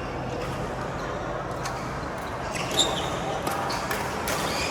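Badminton being played on an indoor court: several sharp hits of rackets on the shuttlecock in the second half, the loudest just before the middle, with short squeaks over the steady background noise of the hall.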